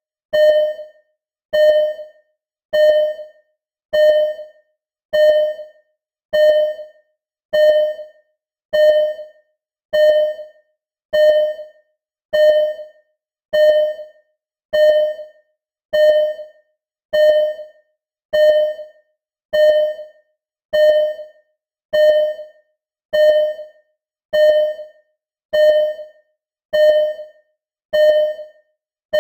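Simulated hospital ECG heart-monitor beep: a single steady-pitched electronic tone repeating evenly, a little more than a second apart. Each beep starts sharply and fades quickly, like a monitor tracking a slow, regular heartbeat.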